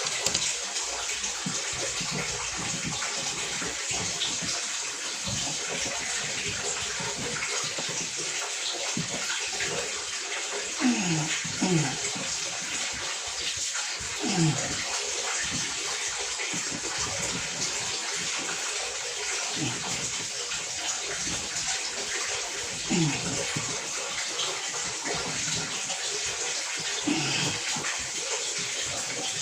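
Steady rush of running water. Several short falling squeaks cut through it, the loudest moments.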